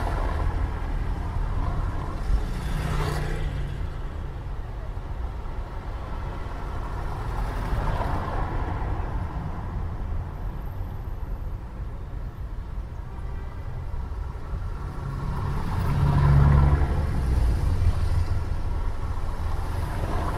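City traffic ambience: a steady low rumble of vehicles passing, swelling about three seconds in, again around eight seconds, and loudest around sixteen to seventeen seconds.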